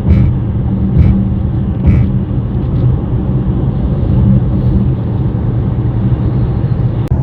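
Inside the cabin of a 2024 Mercedes-AMG GLE63 S at highway speed: a steady low drone and road rumble, with a few short buzzy ticks about a second apart in the first two seconds. This is the vibration noise the owner hears from the dash area, noticeable when changing lanes and hitting Botts' Dots, its cause not yet identified.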